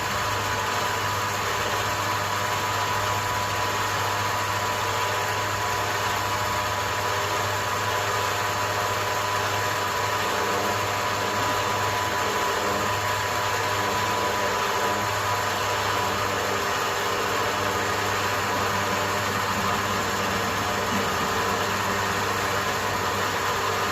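Jeep engine idling, a steady unbroken drone with a low hum and a thin steady whine.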